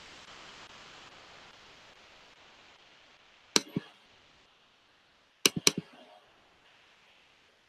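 Faint steady hiss with sharp clicks: two about three and a half seconds in, then three in quick succession about two seconds later.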